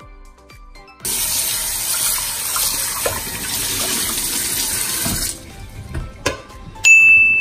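Kitchen faucet running into a stainless steel sink, the water splashing over a pot and the drain; it starts about a second in and stops about four seconds later. Near the end a single bright ding rings out and fades.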